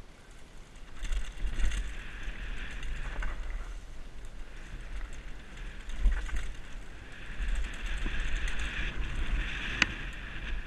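Wind buffeting a helmet-mounted GoPro's microphone as a Canyon Torque FRX freeride mountain bike runs fast down a dirt trail, its tyres and frame rattling over the rough ground. There are a few short knocks and one sharp click near the end.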